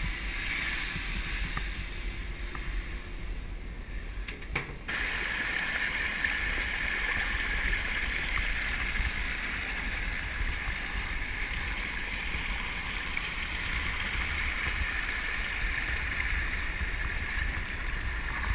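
Muddy floodwater spilling over a concrete curb and running across the flooded ground: a steady rush of water that comes in suddenly about five seconds in, after a quieter stretch. Wind rumbles on the microphone underneath.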